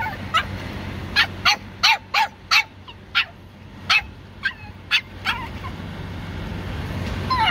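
Pomeranian puppy barking in a run of short, high-pitched yips, about a dozen of them irregularly spaced, then a falling whine near the end: the dog is agitated at being left in his car seat.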